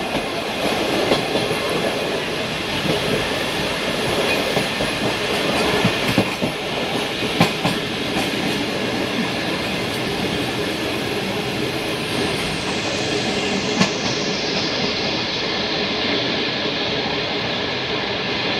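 Running noise of a moving train heard from on board: a steady rumble and clatter of wheels over the rails, with a few sharper knocks.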